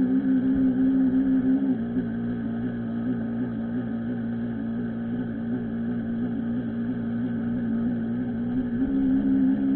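Radio-controlled model boat's motor running steadily, a constant hum heard from on board the boat. Its pitch drops slightly about two seconds in and rises again near the end.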